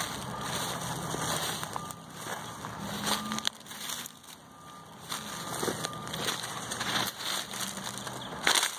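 Footsteps crunching and crackling through dry grass and saw palmetto brush in irregular strokes, with a louder crackle near the end. A low steady hum runs underneath.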